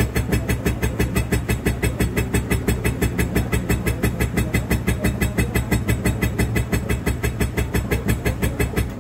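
Boat engine cranked by its electric starter without catching, an even chugging of about five strokes a second that stops near the end: the engine won't start.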